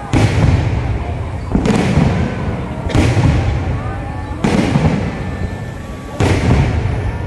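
Fireworks display: five loud booms about one and a half seconds apart, each trailing off in a low rumble before the next.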